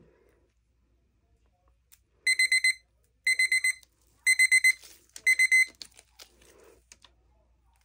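Digital timer alarm beeping: four quick high-pitched beeps in a row, the group repeated four times about a second apart, then it stops. A few light clicks and taps follow.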